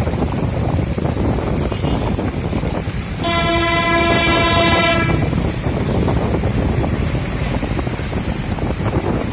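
Steady rushing noise of floodwater flowing down a street, with wind on the microphone. About three seconds in, a vehicle horn sounds once, a single held note lasting nearly two seconds.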